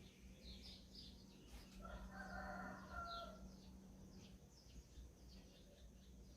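A rooster crowing once, faintly, for about a second and a half starting about two seconds in, while small birds chirp throughout with short high notes.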